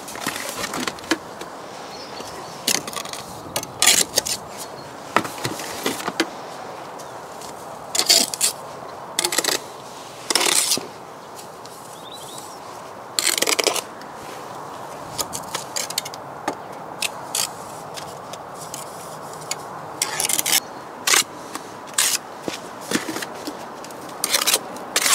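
Steel bricklaying trowel scraping and knocking against wet mortar in short, irregular strokes as mortar is scooped from a tub and spread along the bed of the brickwork.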